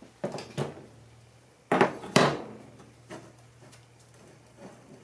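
Handling noise: a few short knocks and rustles, the two loudest about two seconds in, with fainter ones after.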